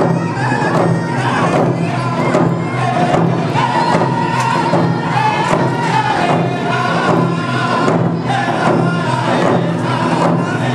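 Round dance song: a group of men singing together in unison while beating hand-held frame drums in a steady beat.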